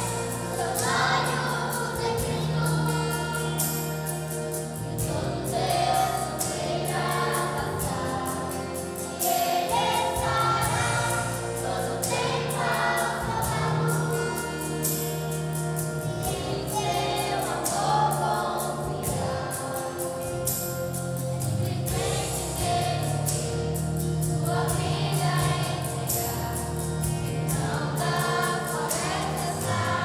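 Children's and youth choir singing a Portuguese-language song over instrumental accompaniment with sustained low notes and a steady beat.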